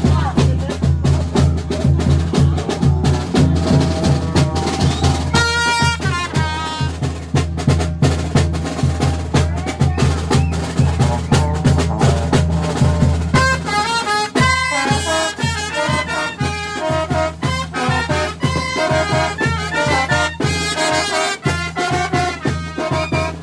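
Brass band music with drums keeping a steady beat over a sustained bass; from about halfway through, the horns play a busier melody.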